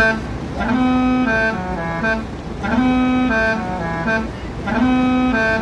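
Tour bus's basuri multi-tone musical air horn playing a short melody that repeats about every two seconds, three times.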